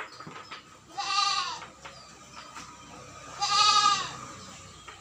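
Goat bleating twice, two calls of well under a second each that rise and fall in pitch, the second louder. The goats are bleating to be let out of their shed.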